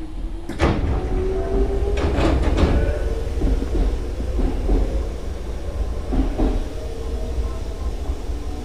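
Nose Electric Railway 5100-series electric train heard from inside the car, running under a steady low rumble with a faint rising tone. Paired clacks of the wheels over rail joints come several times, easing toward the end as the train slows on the approach to Yamashita station.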